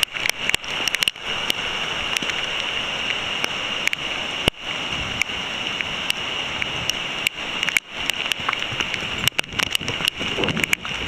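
Heavy downpour of rain close on the microphone: a steady hiss peppered with sharp ticks of drops striking it.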